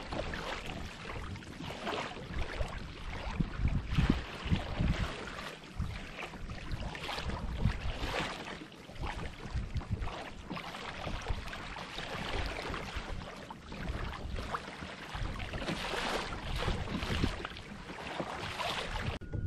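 Sea water splashing and rushing against the hull of a pedal-driven fishing kayak under way through choppy water, in repeated irregular splashes, with wind rumbling on the microphone.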